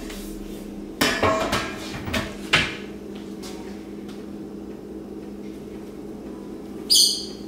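Enamelware roasting pan and lid clattering: several metal knocks between about one and three seconds in, then one sharp high clink near the end, over a steady low hum.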